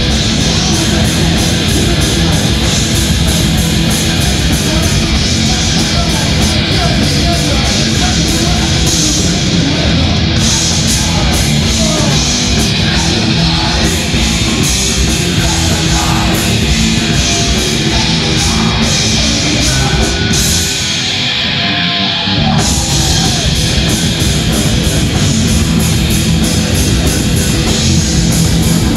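Thrash metal band playing live: distorted electric guitars, bass and drums with a lead vocal, loud and dense throughout. About 21 seconds in there is a short break where the deep low end and the top hiss drop away for about two seconds.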